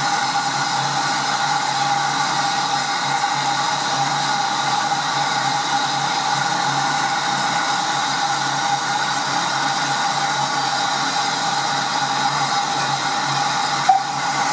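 SECR H class tank locomotive No. 263 standing in steam, blowing off with a steady hiss that carries a thin whistling tone. A single short click comes near the end.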